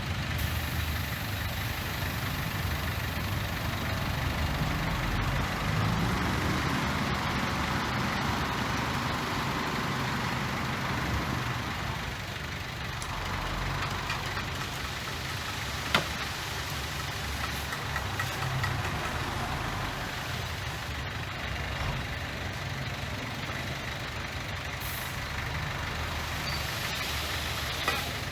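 Heavy diesel engine running steadily with a low rumble, with a single sharp click about halfway through.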